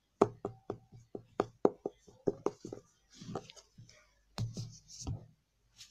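Fingers tapping on a book: a quick run of about a dozen sharp taps, a short soft brushing sound, then a few more taps near the end.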